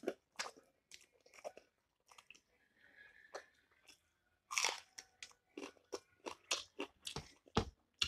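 Close-up crunchy chewing and biting of a hand-fed mouthful of rice with lightly cooked, still-crisp bitter gourd: irregular sharp crunches, the loudest about four and a half seconds in.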